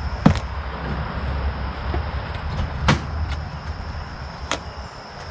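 End-cutting nippers gripping and snapping nails pulled out from the back of door trim: sharp clicks, the loudest just after the start and others about three and four and a half seconds in, over a steady low rumble.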